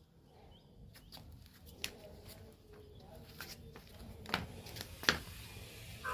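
Quiet background broken by a few sharp knocks, the loudest about five seconds in, with faint high chirps.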